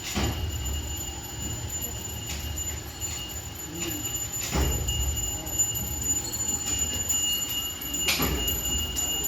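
Hydraulic two-wheeler service ramp being lowered: a steady low rumble with three clunks about four seconds apart.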